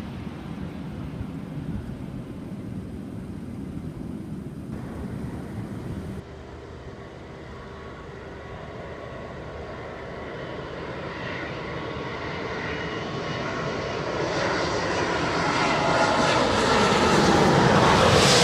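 Wind rumbling on the microphone, then, after a sudden change, a jet airliner's engines growing steadily louder with a whine as the aircraft comes close, peaking near the end.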